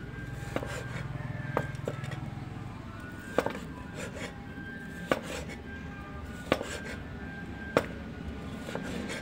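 Cleaver chopping raw meat on a wooden cutting board: about eight sharp knocks, irregularly spaced a second or so apart.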